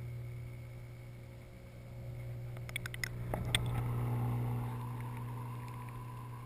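Steady low hum of a saltwater aquarium's pump, heard through a camera submerged in the tank. A few sharp clicks and a knock come about three seconds in.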